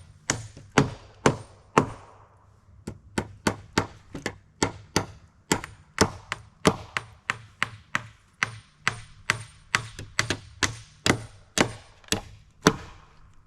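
Hammer driving nails into wooden siding boards, steady blows at about two a second, with a short pause about two seconds in.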